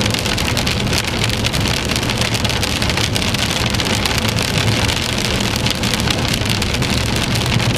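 Heavy rain pattering densely and steadily on a vehicle, over a low steady road and engine rumble.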